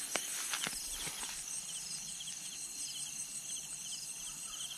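A night chorus of crickets chirping in rapid, even pulses, with a couple of light clicks in the first second.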